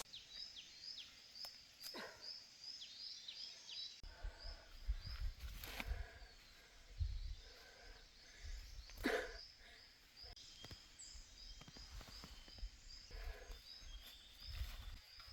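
Faint outdoor ambience: a short, high-pitched chirp repeats several times a second, pausing for a few seconds in the middle, with occasional soft rustles and a low rumble of wind.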